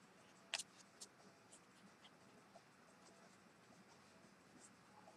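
Brush pen stroking across paper: short, faint scratching strokes, the loudest about half a second in, then lighter ones every half second or so.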